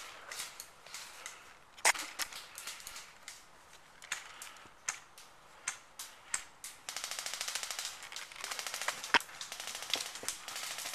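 Airsoft guns firing: scattered single shots and cracks, the loudest about two seconds in, then a long rapid full-auto burst starting about seven seconds in, with a short break.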